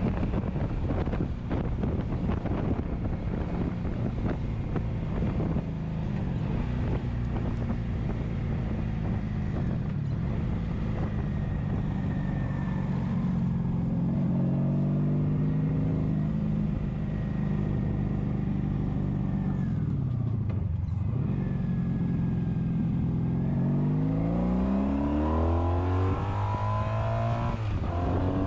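1983 Honda V45 Sabre's V4 engine running under way, with wind rushing over the microphone. The engine pitch holds, rises and falls, drops lowest as the bike slows about three quarters of the way in, then climbs steeply near the end as it accelerates.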